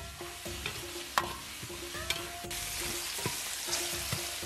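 Whole spices, chilies and aromatics sizzling in hot oil in a large wok while a metal ladle stirs them, knocking against the wok a few times.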